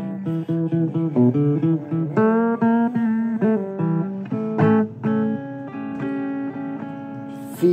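Guitar being picked, single notes and chords one after another, several to the second, in a blues vein.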